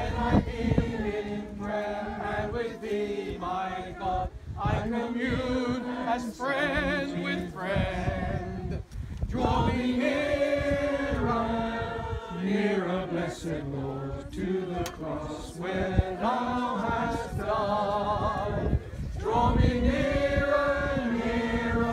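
A group of mourners singing a hymn together, unaccompanied, in sustained phrases with short breaks between them.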